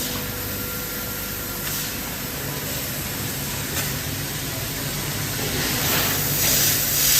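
5-axis CNC fiber laser cutting machine at work: a steady hiss over a low hum, the hiss growing louder near the end.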